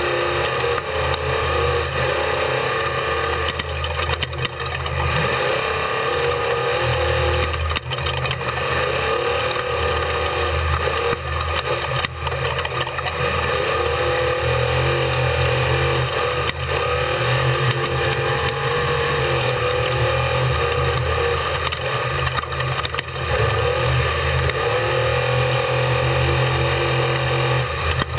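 Unlimited-class desert race truck's engine running hard at race pace, heard on board, its pitch rising and falling in long sweeps as the throttle is worked.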